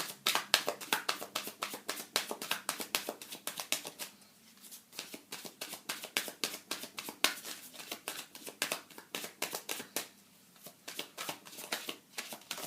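A deck of tarot cards being shuffled by hand: a quick run of crisp card clicks and flutters, thinning out twice, about a third of the way in and again near the end.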